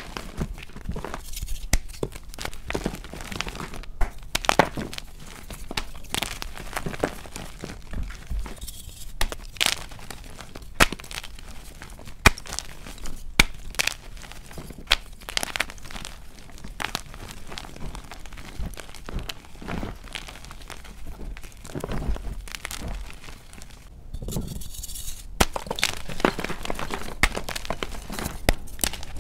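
Dyed gym chalk blocks being squeezed and crumbled in bare hands, giving dense, dry, crunchy crackling with many sharp snaps as the blocks break and the powder crumbles, sped up to double speed. There is a short lull near the end before the crunching starts again.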